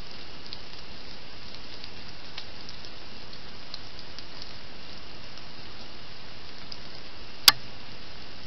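Trail camera's own sound track: a steady hiss with faint scattered ticks, broken by a single sharp click about seven and a half seconds in.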